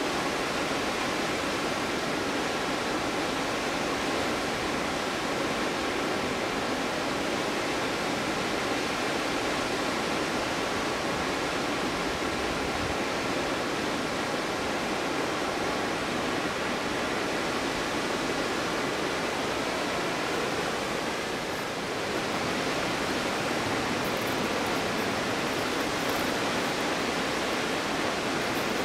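Stuibenfall waterfall in winter: falling water making a steady, even rushing noise, dipping briefly about three-quarters of the way through.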